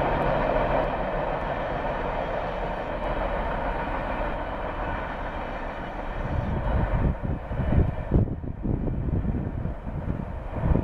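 Freight train cars rolling past on the rails, a steady rolling clatter of steel wheels. From about six seconds in the rolling noise thins out and low gusts of wind buffet the microphone.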